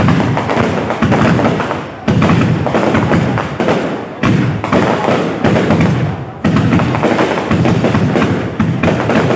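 Fireworks going off in a dense barrage of bangs and crackles, in waves that start suddenly about every two seconds, with music playing along.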